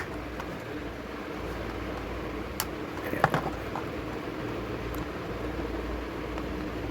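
Steady low background hum with a few light clicks, about two and a half, three and five seconds in.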